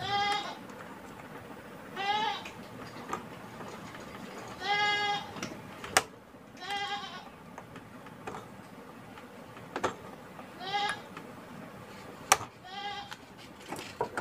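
A goat bleating again and again: six short, wavering calls about two seconds apart. There are also two sharp clicks in between, the second of them the loudest sound.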